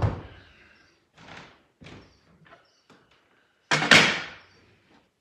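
Aluminium profiles of a Festool MFT router template knocking as they are handled, with a low thud at the start, a few light knocks, and one loud clattering impact about four seconds in as the template is set down on the workbench.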